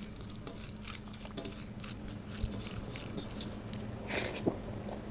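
Fingers mixing rice with dal and aloo posto on a metal plate: soft wet squishing with light scattered clicks, then a bite of the handful a little after four seconds in. A faint steady hum runs underneath.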